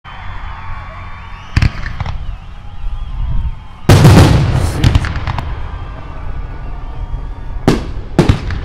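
Aerial fireworks shells bursting overhead. Two sharp bangs come about a second and a half and two seconds in, then the loudest, a long burst with trailing crackle about four seconds in, then two more sharp bangs near the end.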